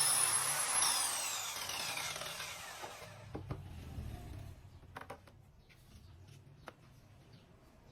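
Saw motor of a sliding-table cutting machine for nano plastic panels, running with a high whine, then switched off and winding down over about two seconds. A few light knocks follow.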